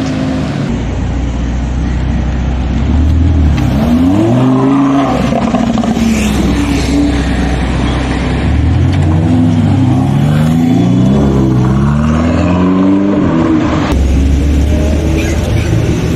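Supercar engines revving and pulling away at low speed, the pitch climbing and falling repeatedly, with a run of short climbs near the middle. The sound changes abruptly twice.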